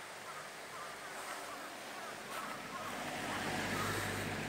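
A shallow mountain stream rushing over rocks in a steady wash, with a low rumble swelling about three seconds in.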